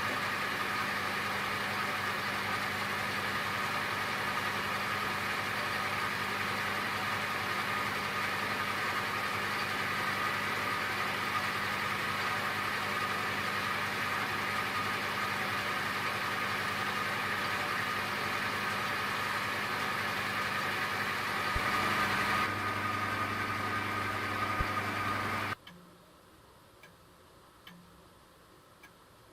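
A machine's motor running steadily with a constant hum, changing slightly near the end, then switching off abruptly, leaving near silence with a few faint clicks.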